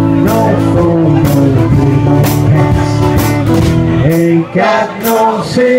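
Live band music: acoustic guitar with a sung melody over it and a steady beat of drum or cymbal hits about once a second.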